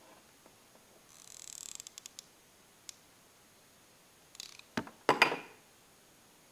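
Hands handling small craft pieces close to the microphone: a brief rustle with a few light clicks about a second in, then a short cluster of sharp clicks and knocks about five seconds in.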